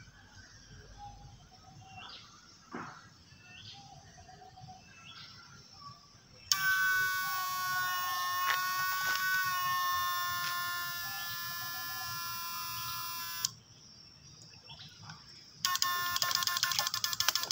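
Faint outdoor background with a few short chirps. Then a loud, steady electronic chord-like tone, dubbed in, starts suddenly, runs for about seven seconds and cuts off abruptly. Near the end, fast-pulsing background music comes in.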